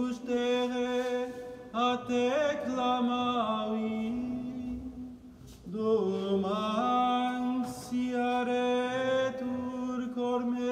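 Gregorian chant in Latin, sung by a single male voice without accompaniment: long notes held mostly on one reciting pitch, with small steps up and down, in two phrases with a breath about five seconds in.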